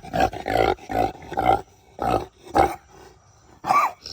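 Pig grunting: a run of short, rough grunts about two a second, thinning out toward the end with one longer call.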